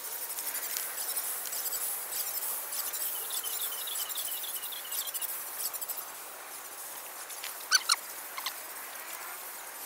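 Birds and insects chirping: a rapid run of high, repeated chirps through the first half, then two short, sharp, louder calls close together nearly eight seconds in, with a fainter one just after.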